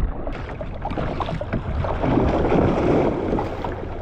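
Small waves lapping and splashing against a kayak's hull, with many small ticks of water and wind on the microphone; the splashing swells louder about two seconds in.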